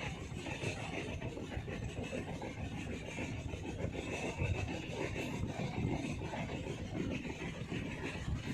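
Moving train's steady running noise heard from on board, mostly a low rumble.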